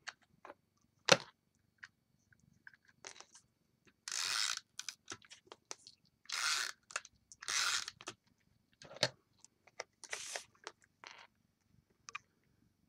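Snail adhesive tape runner pulled across card stock in four short strokes, each a brief rasping run, with small clicks and taps of handling between. A sharp click about a second in is the loudest sound.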